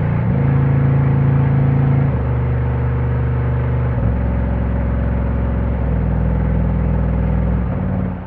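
Car-audio subwoofer driven by a Class-D UcD fullbridge amplifier, playing loud deep bass tones that step to a new pitch every couple of seconds. The bass fades and stops just before the end.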